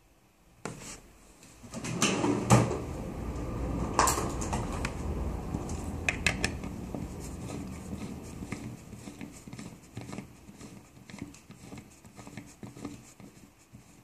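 Small hard vape parts, an atomizer and an ohm meter, being handled and fitted together: sharp clicks and clatter with rustling. It starts about half a second in, is busiest in the first half and tapers off near the end.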